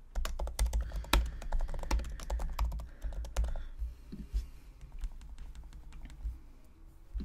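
Typing on a computer keyboard: a quick run of keystrokes for about three and a half seconds, then a few scattered clicks.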